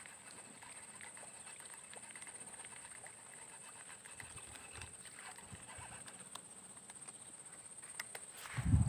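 Steady high-pitched drone of forest insects, with scattered faint clicks and a louder low thump near the end.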